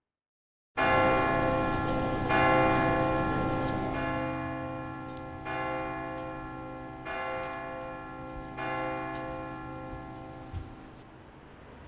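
A bell-like chime begins suddenly about a second in. It is struck again about every second and a half, each strike ringing on and fading, and the whole sound grows gradually softer.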